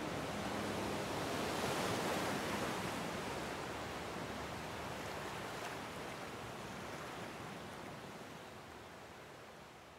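Sea surf washing on a shore, a steady hiss that swells over the first couple of seconds and then slowly fades out.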